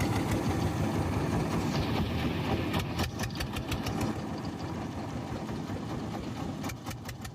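Jiangdong 1125 single-cylinder diesel engine of a motorboat running steadily with a rapid, even knocking beat, easing slightly quieter after about four seconds.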